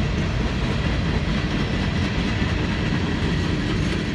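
Norfolk Southern manifest freight train's cars rolling past, steel wheels running on the rails with a steady, continuous noise.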